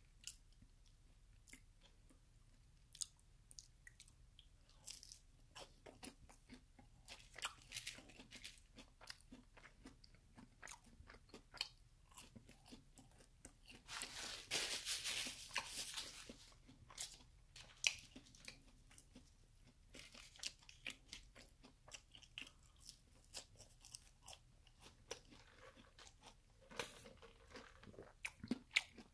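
Close-miked chewing of crispy fried Chicken McNuggets: many small crunches and mouth clicks, with a louder two-second stretch of noise about halfway through.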